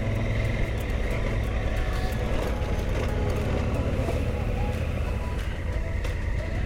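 Adventure motorcycle engine running steadily while riding a gravel forest track, heard from the bike's onboard camera.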